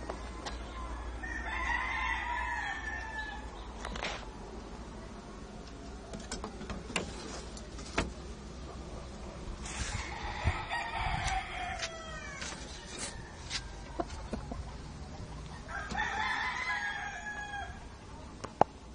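Roosters crowing three times, each crow about two seconds long, with a few short sharp knocks in between.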